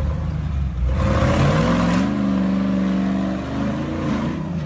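Toyota rock crawler's engine revving hard on a ledge climb: the pitch rises about a second in, holds high, then drops back near the end, with a rush of noise as the revs climb.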